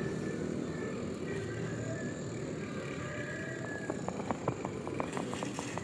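Bicycle rolling along a paved road: steady tyre and wind noise. About two-thirds of the way in, a quick run of light ticks and clicks begins.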